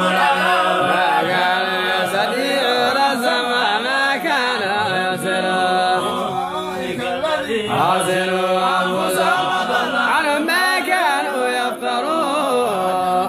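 Group of men chanting a Quranic recitation in unison, melodic and continuous, with long held, wavering notes over a steady low drone.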